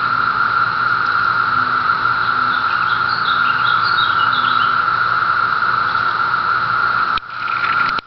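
Chorus of 17-year periodical cicadas: a loud, steady, high droning hum from many insects at once. A few short high chirps come and go in the middle.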